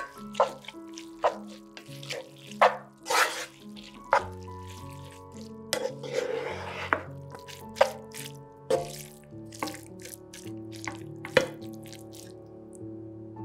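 Wooden spoon tossing sauced noodles in a frying pan: short wet clicks and scrapes, roughly one a second, with a short hiss about six seconds in. Soft background music with held tones plays underneath.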